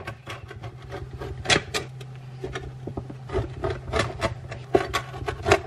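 Pizza cutter wheel rolling through a thin spinach-base pizza on a wooden board: a run of crunching, scraping clicks as the crust is cut, over a steady low hum.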